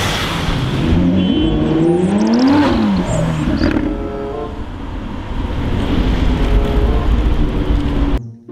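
Lamborghini Aventador V12 engine revving as the car pulls away. The engine climbs in pitch and drops back about two seconds in, then runs loud until it cuts off suddenly near the end.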